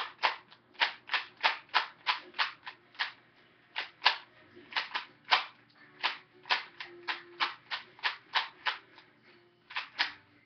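Rubik's cube being turned quickly by hand: a fast run of sharp plastic clicks, about three a second, with a couple of brief pauses. The cube is freshly lubricated with silicone spray and turns smoothly without locking up.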